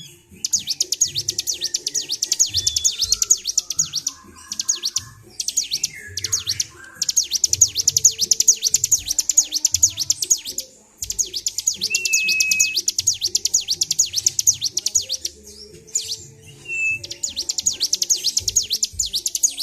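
Bar-winged prinia (ciblek) singing in long, unbroken runs of rapid high chirping, pausing only briefly a few times. It is in excited, nonstop full song.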